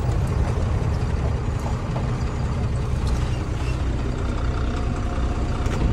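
Truck engine running steadily under way, a low, even drone.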